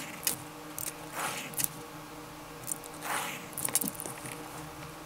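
Pencil drawing straight lines along a metal ruler on paper: two soft scratchy strokes, with light clicks and taps as the ruler is shifted down the page. A faint steady hum runs underneath.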